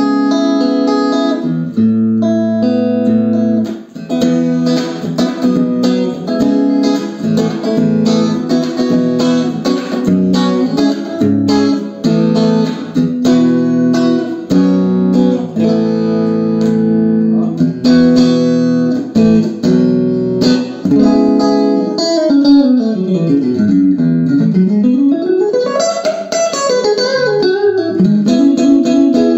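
Electric guitar played through a Peavey Rage 158 TransTube combo amp, with the treble turned down and the pre switch on, which evens out the highs and compresses the tone: a run of chords and single notes. Near the end one note swoops down in pitch and back up again.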